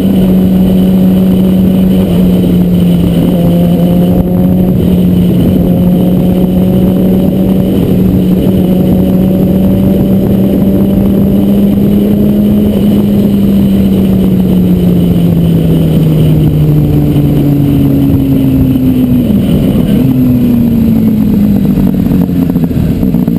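Sport bike's inline-four engine running at a steady cruise under wind rush. Its note holds even for most of the stretch, then falls in steps in the last several seconds as the bike rolls off and slows.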